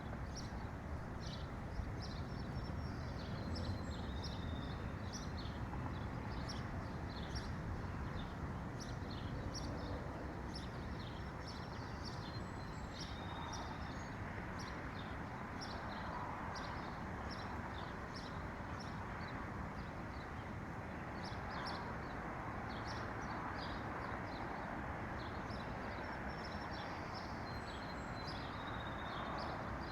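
Several small songbirds chirping and twittering in quick short high notes, over a steady background hiss.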